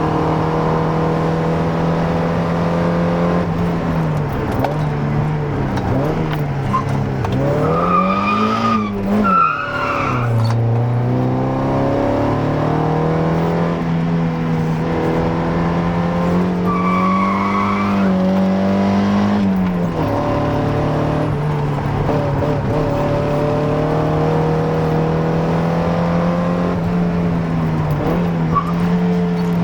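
Mazda Miata NA's 1.6-litre inline-four running hard under steady throttle, the engine note holding, dipping and climbing again as the car is driven through corners. Short tyre squeals about eight to ten seconds in and again around seventeen seconds.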